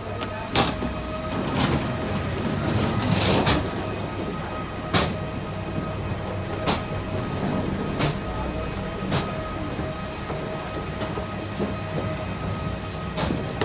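Footsteps and wheeled carry-on luggage on the steps of a covered aircraft stairway: sharp knocks every second or two over a steady hum.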